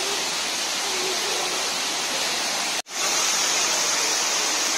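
Steady rushing of water. It cuts out for an instant a bit under three seconds in and comes back slightly louder and hissier.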